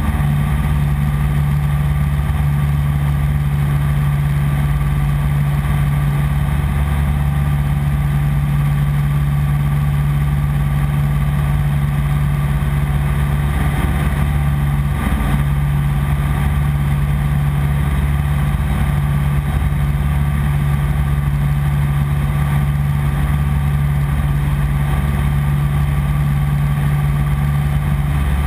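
1948 Piper PA-15 Vagabond's piston engine and propeller running at steady cruise power, heard inside the cabin as a loud, even drone. The note wavers briefly about halfway through.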